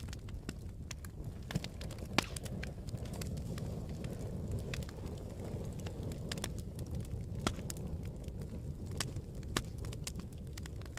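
Campfire burning: a steady low rumble of the flames with scattered sharp crackles and pops from the wood, the loudest pop about two seconds in.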